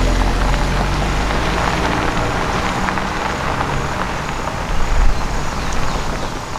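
Pickup truck driving on a dirt road: its engine runs steadily over the noise of tyres on loose dirt, swelling louder about five seconds in.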